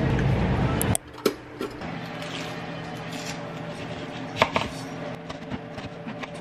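Kitchen knife cutting through a peeled onion on a plastic cutting board: a few scattered knocks and taps of the blade against the board, over a faint steady hum. For about the first second there is loud, busy store noise that cuts off suddenly.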